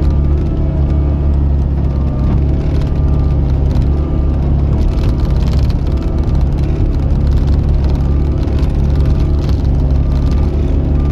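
Cat 279C compact track loader's diesel engine running steadily under work with a loud low drone, with a short high tone repeating about once a second over it.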